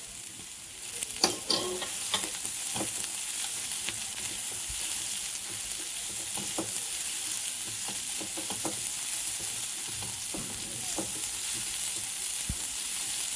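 Chopped capsicum, onion and carrot sizzling in hot oil and butter in a pan over a high flame, with a steady hiss and scattered clinks and scrapes as the vegetables are stirred.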